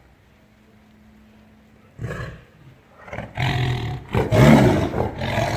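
Tiger roaring. A short outburst comes about two seconds in, then loud, deep, drawn-out roars from about three seconds on.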